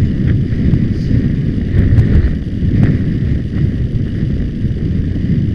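Heavy wind buffeting a hat-mounted camera microphone while riding across open ground on horseback, with a few faint clicks.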